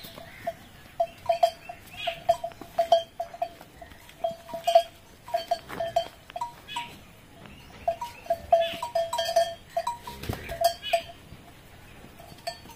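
Small metal bell on a cow's neck collar clinking irregularly, several light chimes a second in uneven clusters, as the cow moves its head while feeding from a bucket.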